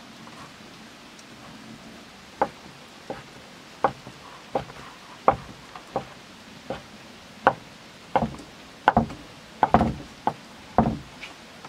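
A chef's knife slicing rolled, floured fresh pasta dough into ribbons, each cut ending in a knock of the blade on the board beneath. About fourteen cuts in an even rhythm, beginning about two seconds in, a little closer together near the end.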